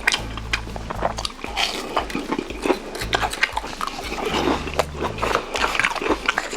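Close-miked eating sounds of a person biting and chewing rosé braised chicken (jjimdak): a dense run of irregular mouth clicks and smacks.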